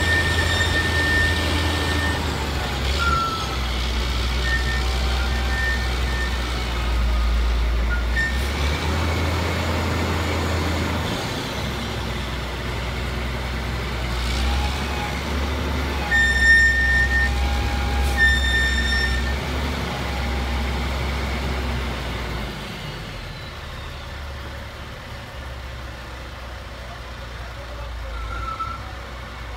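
Roll-off truck's diesel engine running at raised revs to drive the hydraulic hoist while a 20-yard roll-off dumpster is lowered off the truck and set down. A high beeper sounds a few times near the start and again past the middle, and the engine settles back to a lower idle about three-quarters of the way through.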